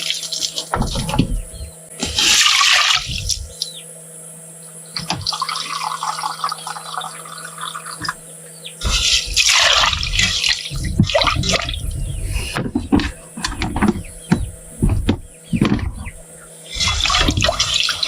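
Water poured and sloshed in a pot in three bursts, a few seconds apart, as rice is rinsed for cooking. Short knocks and clatter of the pot and kitchenware come between the pours.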